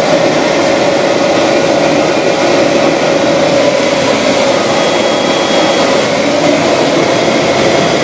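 Turboprop engines of a Transall C-160 military transport plane running, heard inside the cargo hold: very loud, steady noise with a steady tone through it.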